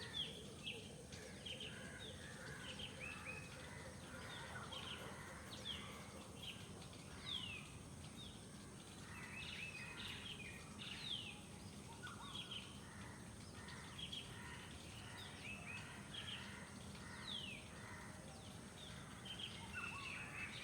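Morning bird chorus: many birds chirping and calling, with short quick falling whistles scattered throughout, over a steady low background hum.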